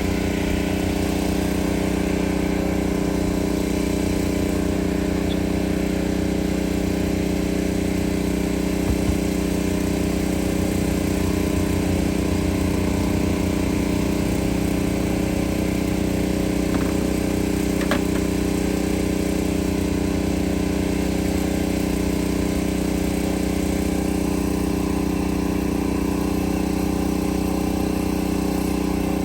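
DJI Agras T30 crop-spraying drone's rotors humming steadily, a loud, even drone of several held tones.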